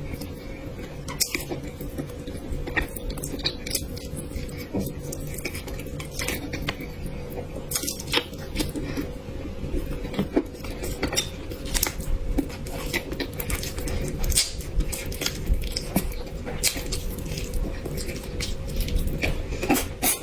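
Close-up eating sounds: utensils clicking and scraping irregularly against dishes, with chewing.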